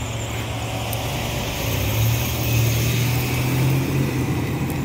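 Street traffic: road noise with a low engine hum from a passing car, swelling about two seconds in and easing off near the end.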